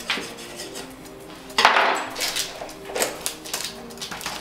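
Spatula scraping and knocking against a metal springform cake pan as the cake is loosened from it, with several clatters and one loud clack about a second and a half in. Quiet background music underneath.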